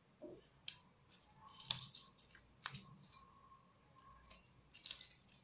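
Scissors snipping the edges of a small folded piece of green paper: several faint, separate snips about a second apart.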